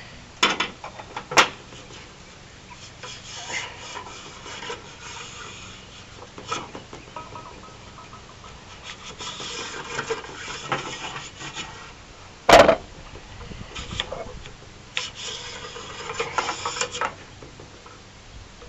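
Wire bore brush on a cleaning rod scraping and rubbing inside a Mossberg 702's .22 barrel, in spells, with a couple of clicks near the start and a single loud knock about two-thirds of the way through.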